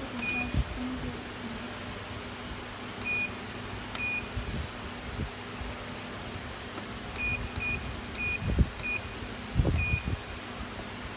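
Pressure fryer's digital control panel beeping as its keys are pressed to set the cooking temperature: about nine short high beeps, scattered at first, then several in quick succession near the end. A steady low hum runs underneath, and a couple of dull knocks come near the end.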